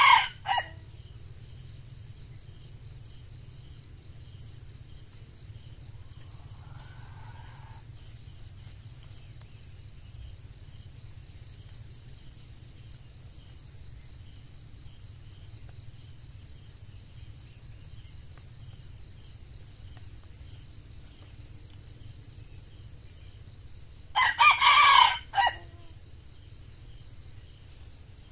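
Red junglefowl rooster crowing: one crow ends just as the sound begins, and another comes about 24 seconds in. A steady high insect drone runs underneath.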